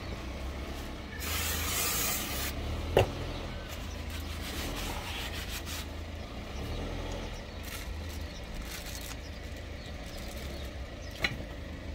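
Aerosol brake cleaner sprayed onto the brake disc in one hiss lasting about a second, followed by a sharp click. Then comes quiet rubbing as a paper rag wipes the disc, over a low steady rumble.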